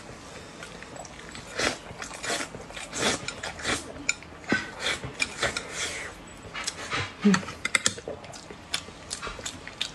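Close-up eating sounds: chopsticks clicking and scraping against a bowl as mouthfuls of rice are shovelled in, with wet chewing and lip smacking, in short irregular clicks and smacks, one louder a little after the middle.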